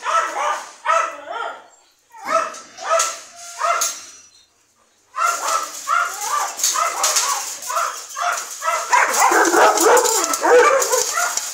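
Several dogs barking in short repeated barks. After a brief pause about four seconds in, the barking comes back denser, with several dogs barking over one another.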